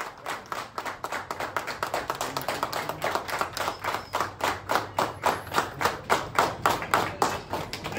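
A group of people clapping together in a steady rhythm, about three claps a second, getting louder and more in unison through the second half.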